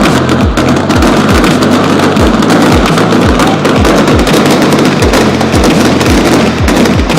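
Electronic dance music with a steady, fast kick drum, a little over two beats a second, over a held bass line.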